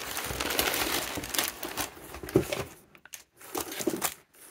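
Packing paper crinkling and rustling as hands dig through a shipping box. It is dense for about the first three seconds, then drops to a few short rustles and clicks.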